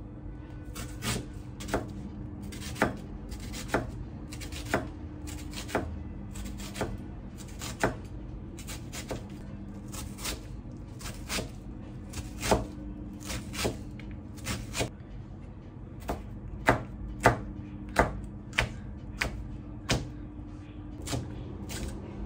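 Chef's knife chopping on a plastic cutting board, dicing onion and then yellow bell pepper: sharp, unhurried knocks about one a second, a little quicker in a short run about two-thirds of the way through.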